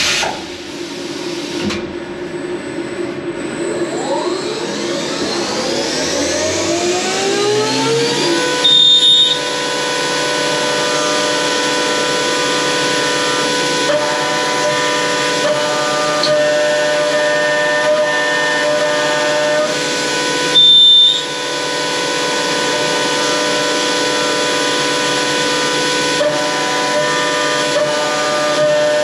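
CNC milling machine spindle (Optimum OPTImill F 105) spinning up, a whine rising in pitch for several seconds before levelling off. The end mill then cuts a metal block with a steady whine made of several held tones. Two brief, louder bursts carrying a high whistle come about 9 seconds and 21 seconds in.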